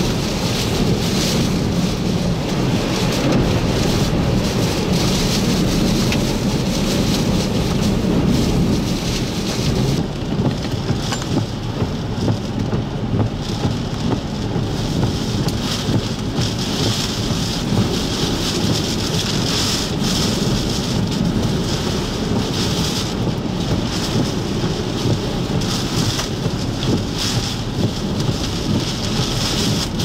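Hurricane-force eyewall winds of a Category 4 hurricane with driving rain: a loud, unbroken rush of noise with a deep rumble underneath. About ten seconds in the sound changes and turns gustier, rising and falling in sharp surges.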